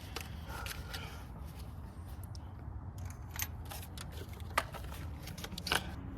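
A few sharp, scattered metallic clicks and taps of hand tools working on spark plugs in a car's engine bay, over a steady low hum.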